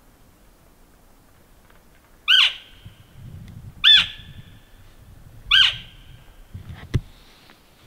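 Three short, high, squealing elk calls about a second and a half apart, each starting sharply and trailing off in a thin whistle. A single sharp knock comes near the end.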